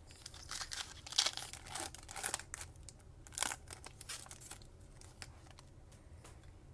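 A trading-card pack's wrapper crinkling and being torn open, in irregular bursts over the first few seconds.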